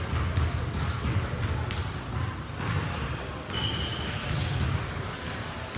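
Basketball game sounds on a gym court: a ball bouncing on the hardwood with repeated low thuds and scattered sharp knocks, and a brief high-pitched tone about three and a half seconds in.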